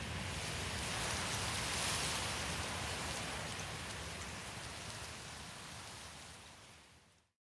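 Wind blowing: a steady rushing noise that swells in a gust about two seconds in, then fades out to silence just before the end.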